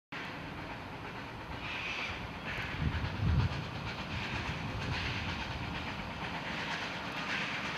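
Double-headed narrow-gauge train climbing a grade, led by NA class 2-6-2T steam locomotive 6A with diesel-hydraulic DH5 coupled behind: a steady working rumble under hissing exhaust puffs about once a second. A low rumble briefly swells about three seconds in.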